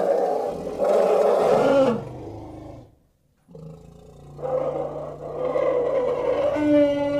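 Cartoon dragon roar sound effect: a loud roar that tails off a little under three seconds in, a brief pause, then a second, longer roar that builds up again.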